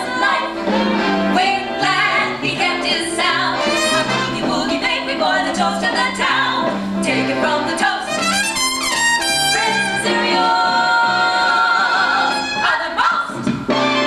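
Big-band boogie-woogie show music: brass with a stepping bass line and some singing voices, a rising brass run about eight seconds in, then held brass chords.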